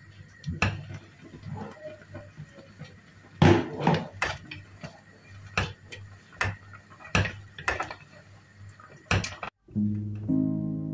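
A stainless steel pot's lid is lifted off and a wooden spoon stirs boiled meat in the pot, knocking and scraping against the metal in a string of sharp clinks. Near the end, background guitar music starts.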